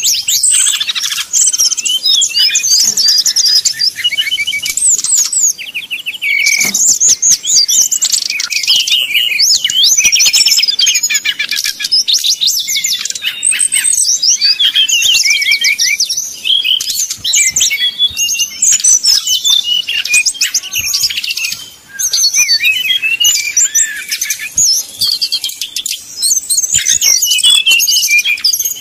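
Brown-chested jungle flycatcher (SRDC) singing a long, rapid, varied song of quick whistles, trills and chattering phrases, almost without pause, with one short break about three-quarters of the way through.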